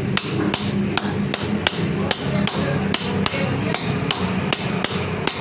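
Hammer blows on metal, evenly spaced at about two to three strikes a second, over a steady low hum.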